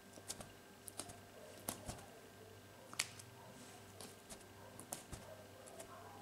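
Clear slime being poked with a makeup applicator wand and then pinched and pressed with the fingers: faint, irregular sticky clicks and pops, the sharpest about three seconds in.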